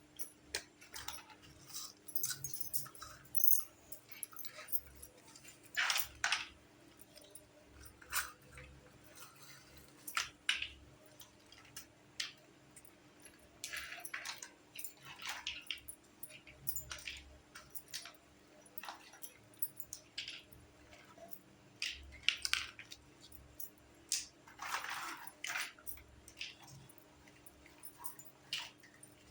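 Small plastic toy kitchen pieces being handled and unpacked: irregular light clicks, taps and rustles, some in quick clusters.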